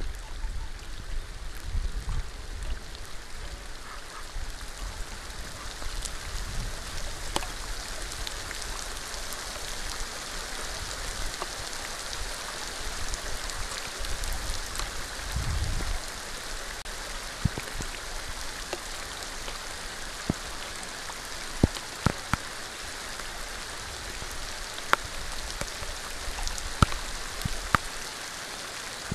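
Steady rain falling on shallow water, an even hiss with loud single drops ticking now and then, more often in the second half. A low rumble underneath fades out about halfway through.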